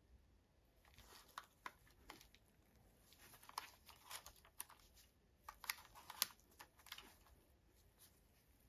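Faint handling noise from gloved hands turning a Canon PowerShot A640 compact camera: scattered light clicks and rustles of glove on camera body, busiest in the middle.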